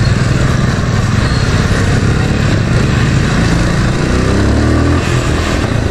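Motorhead X-Torque 250's air-cooled 250 cc single-cylinder engine running as the bike is ridden, its pitch rising about four seconds in as it speeds up.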